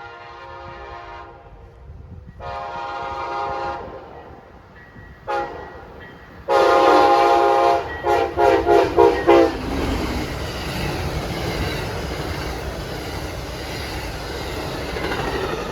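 Amtrak ALC-42 Charger passenger locomotive's air horn played in a horn show: two long blasts, a short toot, then the loudest long blast and a quick run of about six short toots. The train then passes with a steady rush and rumble of wheels on rail.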